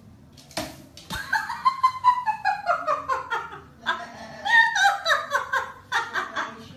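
A person laughing hard in rapid, high-pitched giggles that rise and fall, after a brief knock about half a second in.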